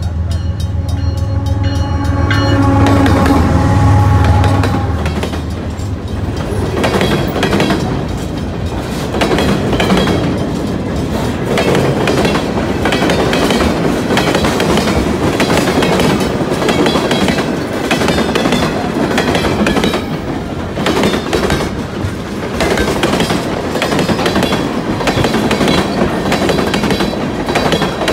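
A diesel-hauled freight train passing close by. The locomotive goes past in the first few seconds, with the loudest point about four seconds in. Then a long string of tank cars and gondolas rolls by with a steady clickety-clack of wheels over the rail joints.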